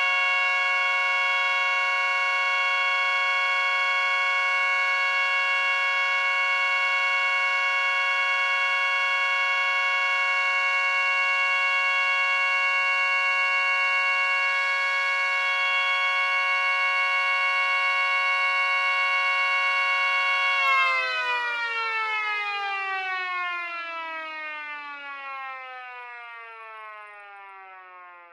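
Three Snowcube single-tone mini sirens, an 8-port Model 7, a 9-port Banshee and a 12-port STH-10, sound together on a steady alert, their tones held at fixed pitches. About 21 seconds in they are cut off and wind down together, their pitches falling and fading.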